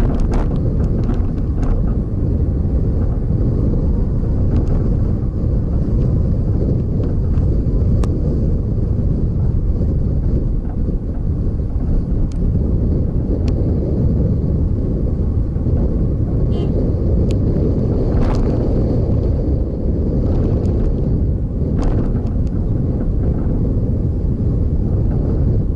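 Steady low rumble of a moving vehicle's road noise mixed with wind buffeting the microphone, with a few faint clicks.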